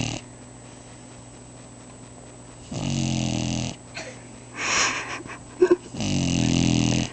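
Boxer dog snoring: two snores, each about a second long with a buzzing, pitched tone, about three seconds apart. Between them comes a breathy exhale and a short snort-like catch.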